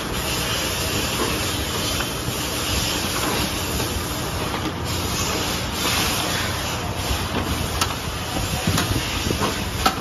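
Rotary perfume filling and crimping machine running, its chain conveyor and mechanism giving a steady hum with an even hiss. A few sharp clicks and knocks come in the last few seconds.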